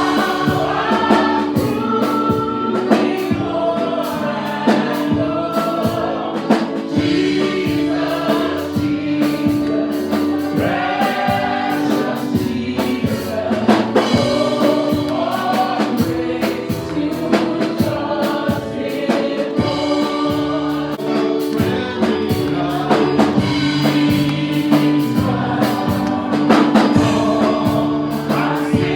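A gospel worship song with group singing over a band: sustained keyboard tones and a steady drum beat.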